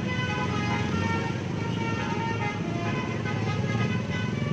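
A tune of quick short high notes over a steady low rumble of vehicle engines.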